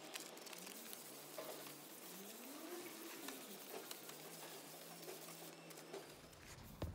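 Faint hand-sanding of a stripped teak tabletop with fine-grit sandpaper on a block, a soft scratchy rasp with small clicks. About two seconds in comes a single low coo, rising then falling, and a sharp knock sounds near the end.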